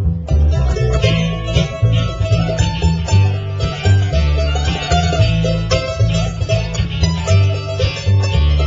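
Bluegrass band playing an instrumental passage without singing: upright bass plucking a steady line under acoustic guitar and mandolin with fast picked notes.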